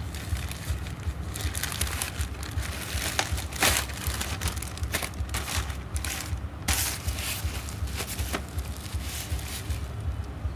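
Plastic courier mailer bag crinkling and tearing as it is pulled open and off a box, then bubble wrap rustling under the fingers. It is an irregular run of crackles, loudest twice in the middle, over a low steady rumble.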